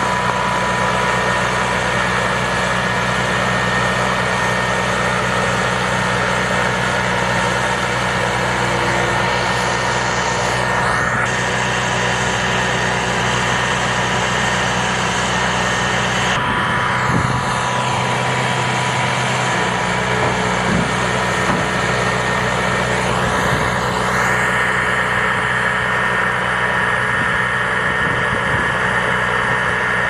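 The gas turbine engine of an Abrams-chassis heavy assault scissor bridge launcher running steadily: a low hum with a thin, high, steady whine over it, while the launcher raises and unfolds the scissor bridge.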